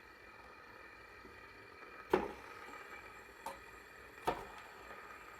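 Fidget spinners' ball bearings spinning with a faint steady whir, broken by three sharp clicks about two, three and a half and four seconds in, the first the loudest.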